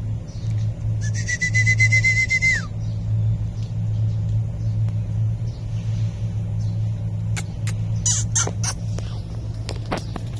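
A puppy whines once, a high, drawn-out cry of about a second and a half that ends in a falling slide, over a steady low hum. Later, a few short clicks and rustles of debris.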